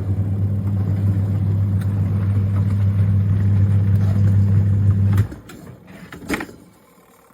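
Twin-tub washing machine's wash motor running with a steady low hum as the wash tub churns. It cuts off suddenly about five seconds in, followed by a few short knocks.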